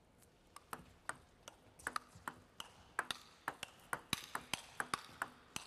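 Table tennis rally: the plastic ball clicking sharply off the bats and the table, starting about half a second in and quickening to about four or five hits a second.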